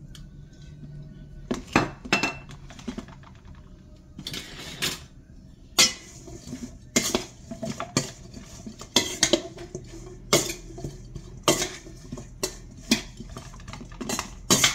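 A metal utensil clinking and scraping against a stainless steel mixing bowl while tossing cauliflower florets, in irregular sharp clinks starting about a second and a half in.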